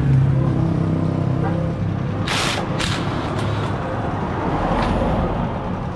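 Cordless drill driving a 10 mm Allen bit on an extension to unscrew the damper rod bolt inside a motorcycle front fork tube: a steady motor hum, then a few short harsh bursts near the middle.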